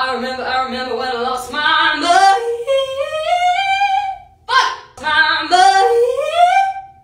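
A woman singing a cappella, attempting a fast vocal riff: quick ornamented runs, then a long rising glide that climbs and holds. After a short break, a second run ends in another rising glide.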